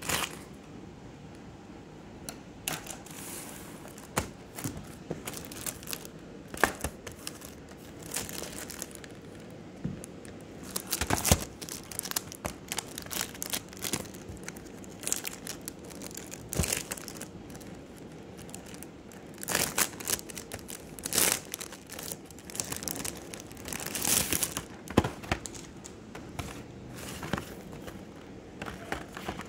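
Clear plastic wrap on a cardboard sticker box crinkling and tearing as fingers pick at it and peel it off, coming and going with sharp crackles and a few louder spells.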